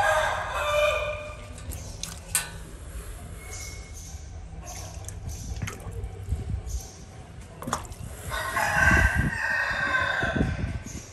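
A rooster crowing twice: one long crow dying away about a second in, another from about eight seconds to ten and a half. A few sharp clicks and drips fall between the crows.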